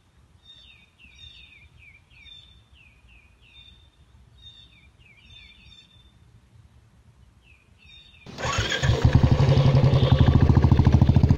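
Birds chirping in short repeated falling calls over quiet background, then about eight seconds in a motorcycle engine starts up and runs loudly with a quick, even beat.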